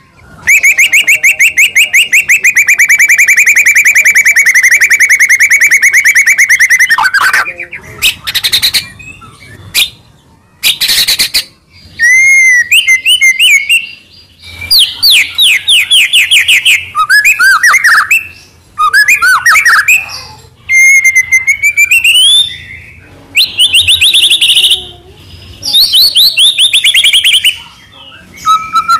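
White-rumped shama (murai batu) singing loudly: a long rapid trill for the first seven seconds or so, then a run of varied whistled phrases, rising and falling sweeps and chirps separated by short pauses.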